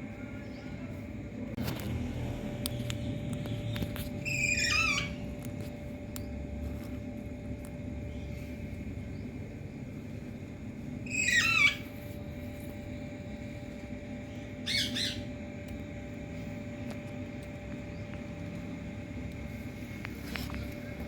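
A parrot giving three short, harsh calls, each falling in pitch, several seconds apart, the middle one loudest, over a steady low background hum.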